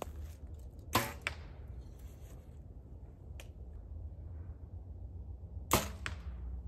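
Two compound bow shots about five seconds apart, each a sharp snap of the released string with a short ring, followed a fraction of a second later by a quieter hit as the arrow strikes the target.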